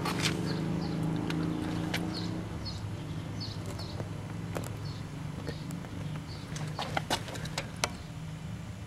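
Small birds chirping over a steady low hum, with scattered sharp clicks and taps, several close together about seven seconds in.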